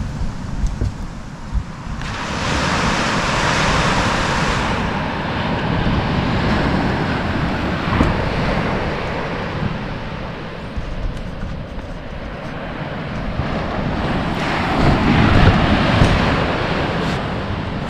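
Surf breaking and washing up a sandy beach, swelling about two seconds in and again near fifteen seconds, with wind rumbling on the microphone. A single sharp tick about eight seconds in.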